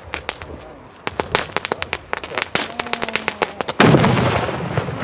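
Firework on the ground: a run of sharp, irregular crackles and pops, then a loud blast about four seconds in, followed by a continuing rush of noise as it throws out sparks.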